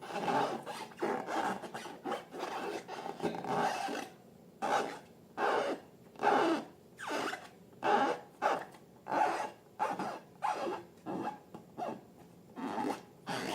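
Slime being worked by hand, making a wet rubbing, rasping sound. It is nearly continuous for the first few seconds, then breaks into separate short strokes about once a second.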